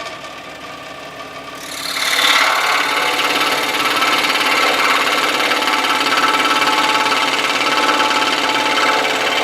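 Scroll saw running, its blade moving rapidly up and down. About two seconds in, the blade bites into the wood and the sound grows louder and coarser as it saws steadily through the board for a relief cut.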